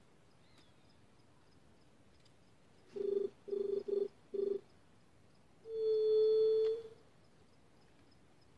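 Juriti (Leptotila dove) cooing: four short low hoots in quick succession, then one longer held hoot of about a second.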